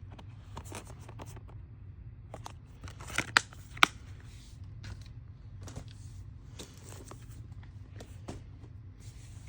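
Plastic Blu-ray cases being handled and shuffled: scattered light clicks and crinkling, with two sharper clicks about a third of the way in.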